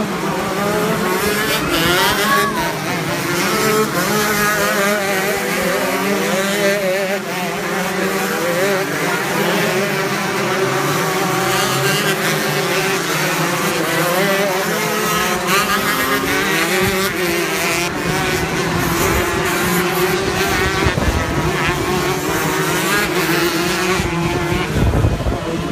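Several 125cc two-stroke shifter kart engines racing together, their pitches rising and falling as the karts rev up and shift through the gears.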